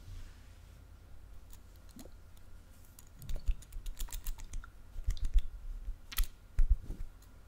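Close-miked ASMR scratching: a dense run of small sharp clicks and scrapes with soft low thumps, starting about three seconds in.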